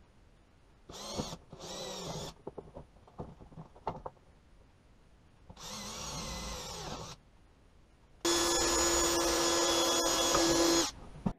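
Cordless drill boring 8 mm holes through the wall of a plastic battery box. It makes two short runs with the pitch rising and falling, then clicks and knocks of handling, then a longer run, and finally a louder steady run of about two and a half seconds near the end.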